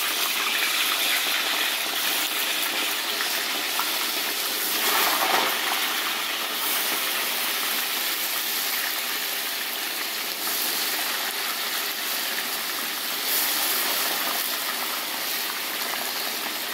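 Chunks of lamb being dropped into very hot cottonseed oil in a cast-iron kazan: the oil sizzles hard and steadily as the meat sears over a high fire, swelling briefly a couple of times as more pieces go in.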